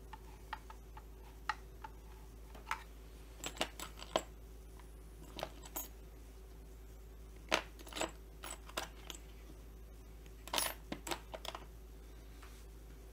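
Scattered light clicks and taps of small hard objects being handled on a workbench, irregular and in short clusters, over a faint steady hum.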